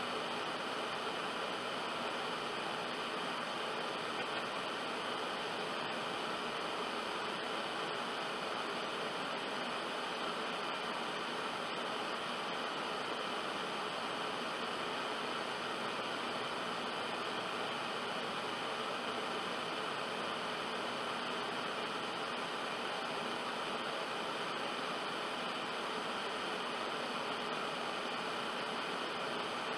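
Steady static hiss: an even, unchanging noise with no tones or voice in it.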